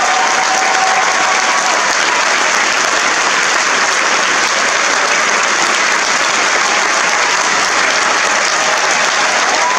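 Theatre audience applauding: a dense, steady clapping that holds evenly throughout.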